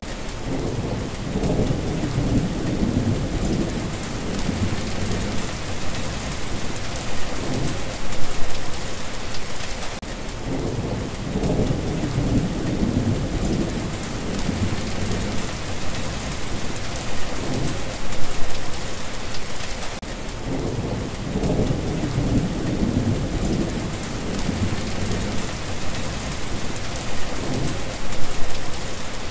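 Steady rain hissing, with low rolling thunder rumbling three times, about ten seconds apart.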